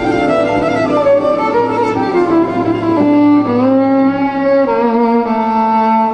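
Instrumental Argentine folk music with a violin carrying the melody in held notes, sliding up in pitch about three and a half seconds in.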